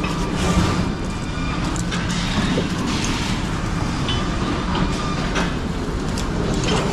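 Heavy diesel engine running steadily, with a few brief metallic clanks over it.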